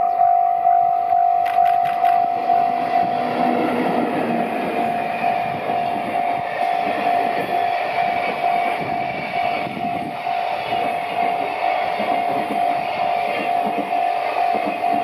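An EF64 electric locomotive passes, followed by a long rake of container wagons rolling by, their wheels clattering on the rails, with a few sharp clicks about two seconds in. Over it all a ringing tone repeats about three times a second and is the loudest sound.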